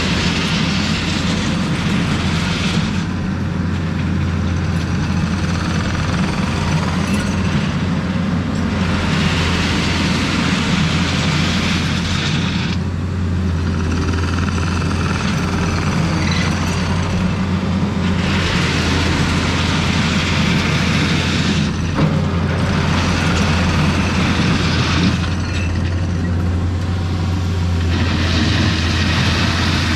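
Diesel engine of a piece of earthmoving equipment running steadily under work, with a hiss that swells and drops away every few seconds.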